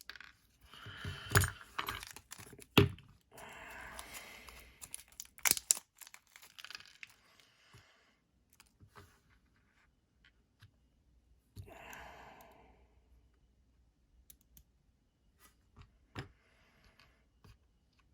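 Hands working on a disassembled folding knife and its tiny screws: irregular light clicks and taps of small metal parts, with a few sharper clicks in the first six seconds and short stretches of rustling between them.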